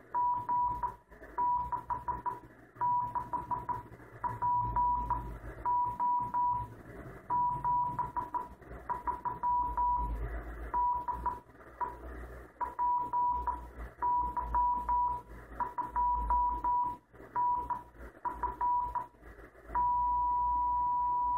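The PY2FD 70 cm (432.300 MHz) amateur radio beacon, received in CW mode on a Kenwood TS-2000 and heard through the radio's speaker: a single whistle-like Morse tone keyed in groups of dots and dashes over receiver hiss. Near the end the keying gives way to a long unbroken tone.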